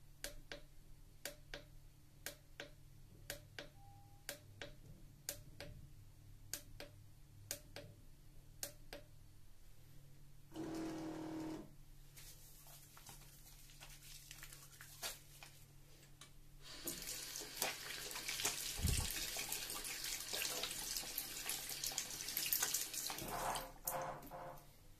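Faint regular clicks about once a second, then, about eleven seconds in, an automatic foaming soap dispenser's pump motor whirs for about a second as it dispenses foam. In the second half, a long rustling hiss of hands rubbing and lathering the foam, with a low thump near the end.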